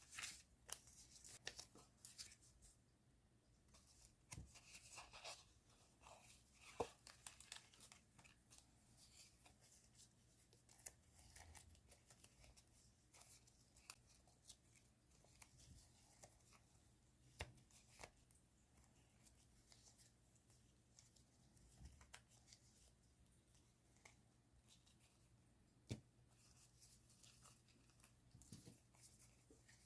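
Hands handling paper stationery and plastic packaging: faint scattered rustles, soft taps and small clicks, a little louder near the start.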